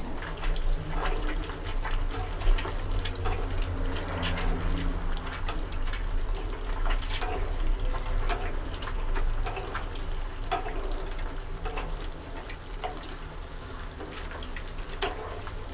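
Peeled boiled eggs deep-frying in oil: a steady bubbling sizzle with scattered crackles and pops throughout, while a wooden spatula stirs them in the wok.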